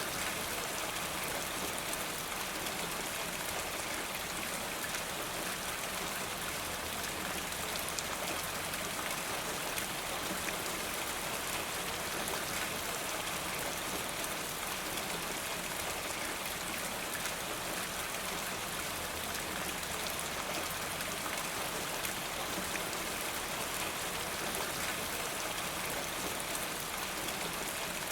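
Steady rain, with water running off a rain gutter: an even hiss dotted with many small drop ticks, unchanging throughout.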